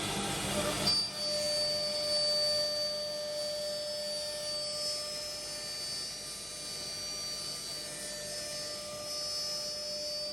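CNC router spindles running at speed with a steady high whine of several fixed tones. A louder rushing noise in the first second cuts off and gives way to the whine.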